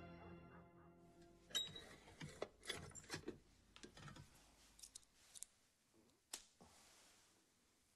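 Faint, sharp metallic clicks and scrapes as a cigarette is taken from a silver table box and lit, about a dozen over a few seconds, with one last click about six seconds in.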